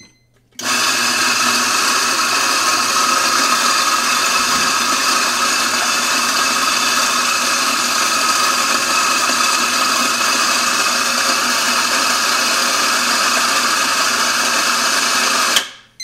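Electric espresso grinder's motor running steadily with a whining hum as it grinds a dose of coffee beans. It starts about half a second in and stops abruptly just before the end.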